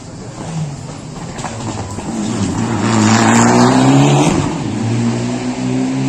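A rally car's engine at full throttle, drawing closer: the pitch climbs, drops sharply at a gear change about halfway through, when it is loudest, then climbs again.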